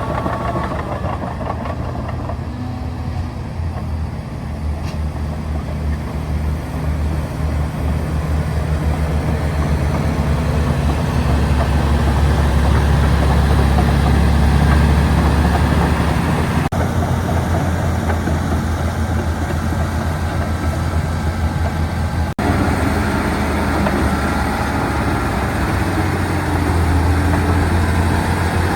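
Komatsu D275AX bulldozer's 550 hp diesel engine running steadily under load with a deep, low drone. It swells to its loudest around the middle and eases off a little, with two very brief breaks in the sound.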